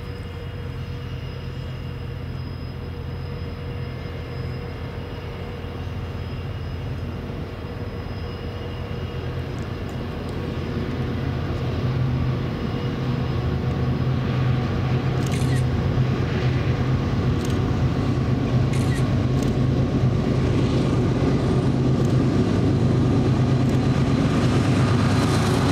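Union Pacific freight train approaching, its diesel locomotive's low engine drone growing steadily louder, with sharp clicks from the wheels on the rails in the second half.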